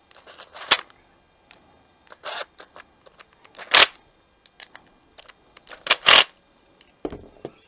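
Cordless electric screwdriver with a socket bit running in short bursts, about five of them, as it drives home the screws of a small plastic carburetor's cover, the last two close together.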